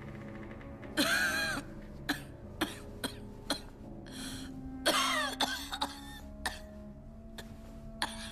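A woman in a coughing fit: a long, voiced, hoarse cough about a second in, several short sharp coughs, a breath drawn in, a second long voiced cough near the middle, then a few more short coughs. Soft background music plays under it.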